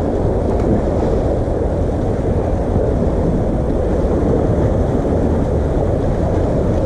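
Steady rush of wind buffeting the microphone, with sea surf washing against the concrete tetrapods of a breakwater.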